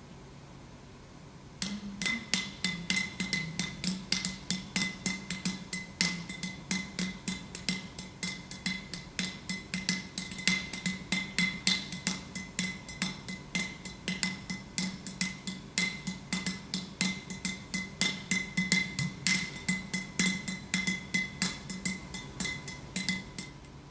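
Clay pot drum played in a fast, steady stream of sharp, ringing strokes, about four to five a second, starting about two seconds in and stopping just before the end.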